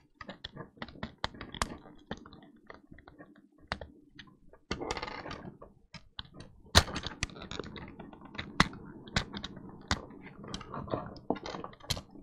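Plastic clicking and rattling of LEGO SPIKE Prime parts as the ball caster and a yellow brick are pulled off the robot model: many small clicks, a short stretch of rubbing about five seconds in, and a sharper snap near seven seconds.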